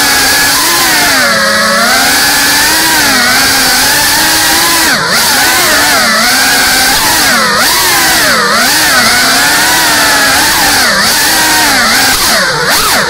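GEPRC Cinelog 35 cinewhoop drone's electric motors and propellers whining, the pitch swooping up and down with the throttle and dropping sharply several times in the second half.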